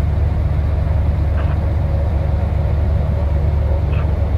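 Steady low drone of a vehicle's engine and tyres, heard from inside the cab while driving on the road. Two faint, brief, higher-pitched sounds come about one and a half and four seconds in.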